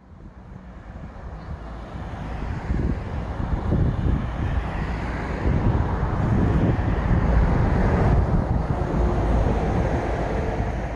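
Street ambience: a steady low rumble of road traffic that fades in over the first few seconds.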